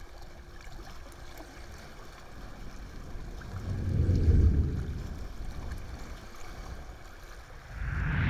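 Outdoor lake ambience of wind and water for the first few seconds. Then a deep whooshing swell from a logo transition sound effect, fading slowly, and a second, brighter whoosh near the end that cuts off abruptly.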